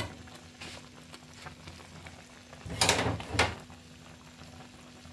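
Thick chicken curry gravy simmering in a metal karahi, a soft bubbling over a faint steady hum. About three seconds in come two brief loud noises, half a second apart.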